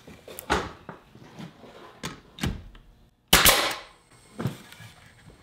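Porter-Cable 16-gauge pneumatic nail gun firing once about three seconds in, a sharp crack that dies away quickly, driving a nail into white oak. Before it come a few lighter knocks as the wood is handled on the bench.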